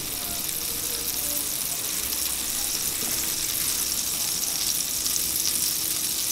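Pieces of butter melting and sizzling in a hot frying pan: a steady hiss that grows slightly louder.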